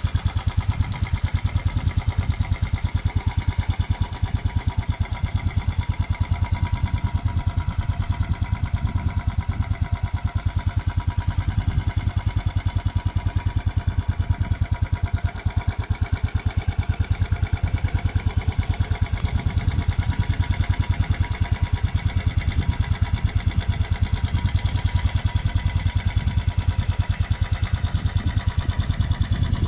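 A 2013 Royal Enfield Bullet 500 EFI's single-cylinder four-stroke engine idling through its stock exhaust, an even, steady beat of exhaust pulses that holds the same pace throughout.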